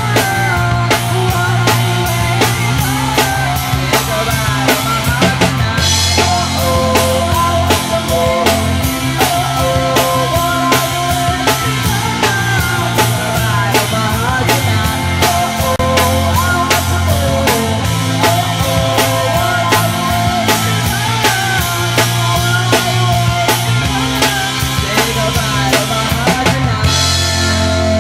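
Rock band playing live in rehearsal: a drum kit keeps a steady, driving beat under electric guitar and sustained low notes.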